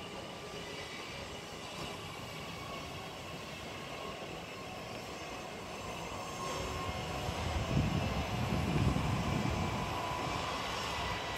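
Steady city street hum, with an engine passing that swells louder about two-thirds of the way through and then fades.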